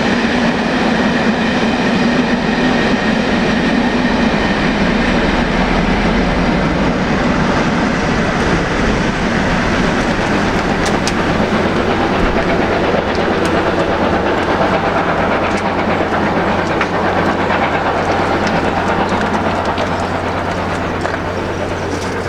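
Steam-hauled passenger train rolling past, a steady rumble with the clatter of wheels over rail joints.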